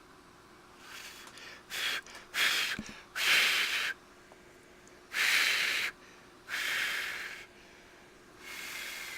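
A person's close, loud breaths, about six short puffs of air in a row, heard in the middle of a soldering job.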